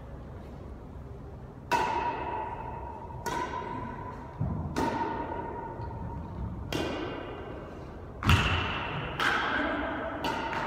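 Badminton rackets hitting a shuttlecock in a rally, a sharp smack about every one to two seconds, seven in all. Each hit rings and echoes off the bare hard walls of the small enclosed court. The loudest hit comes about two thirds of the way through.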